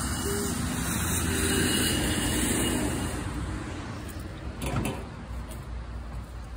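A motor vehicle driving past: a broad engine and tyre noise that swells to its loudest about two seconds in, then fades away. A single click comes near the end.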